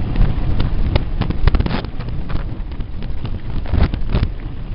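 Mountain bike clattering down a rough dirt trail, an irregular run of sharp knocks and rattles as the bike jolts over bumps and stones, over a steady rumble of wind on the microphone.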